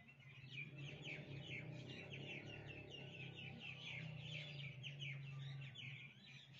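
Small birds chirping rapidly, many short falling chirps a second, over a low steady hum.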